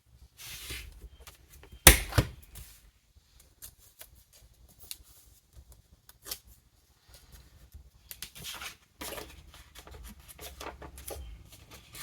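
Planner stickers and paper being handled and peeled: soft rustling with scattered small taps and clicks, and a sharp double tap about two seconds in.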